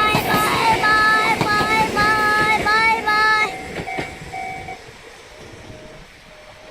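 Railway level-crossing warning bell ringing in a quick repeating rhythm, about two rings a second, over the clatter of a passing train. About three and a half seconds in, the clatter and bell fall away to a few fainter, lower rings.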